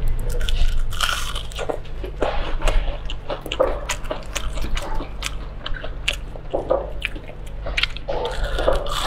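Close-miked biting and chewing of crispy deep-fried battered rings: many short crisp crunches of the coating, repeated through a couple of bites.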